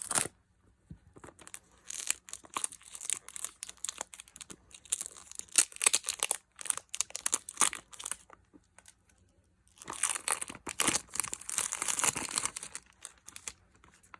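Perfume box packaging being torn and crinkled open by hand: quick crackling tears in two spells, with a short pause between.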